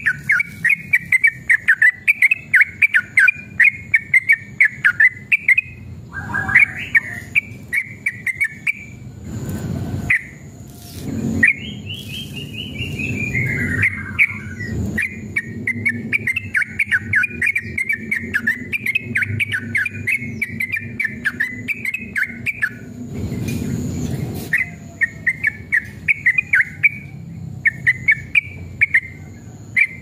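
Yellow-vented bulbul singing long runs of rapid chattering notes, with a longer arching, falling phrase near the middle. Two brief rushes of noise cut in, about ten seconds in and again past twenty.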